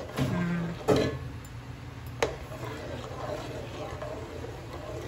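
Long metal ladle stirring curry in an aluminium pot, knocking sharply against the pot twice, about one second and two seconds in.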